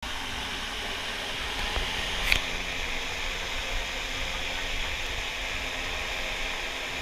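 Turbocharged Scion FR-S's FA20 flat-four engine idling: a steady mechanical whir with hiss, and a single sharp click about two seconds in.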